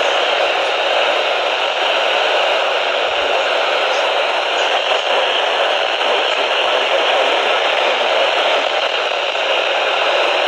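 Steady radio static hiss from a receiver tuned to a NOAA Weather Radio marine-warning broadcast: the signal has dropped out to poor reception.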